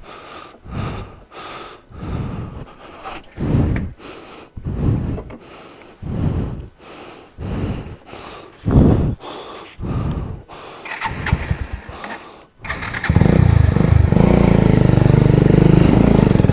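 Motorcycle engine being started: a run of separate cranking strokes about once a second, then it catches about 13 seconds in and runs loudly and steadily.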